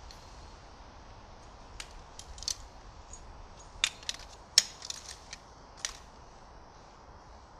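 A DAC aluminium tent pole being taken apart and folded: its sections clack against each other in a string of sharp clicks over about four seconds, the loudest about four and a half seconds in.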